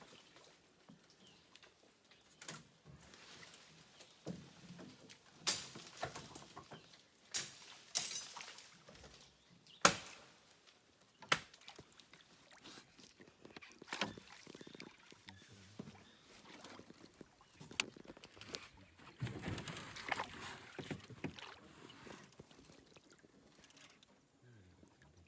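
Irregular knocks and light water sounds around a small wooden river boat, a dozen or so sharp knocks spaced unevenly over faint background noise.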